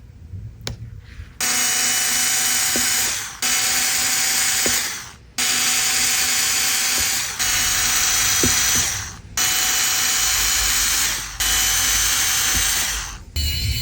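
A small power tool whirring in six bursts of about two seconds each, with short breaks between them.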